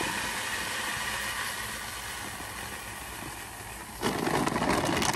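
Corn pouring from a feed bag into a bucket, a steady rushing rattle that slowly tapers off. About four seconds in, louder crackling starts as the feed bag is handled.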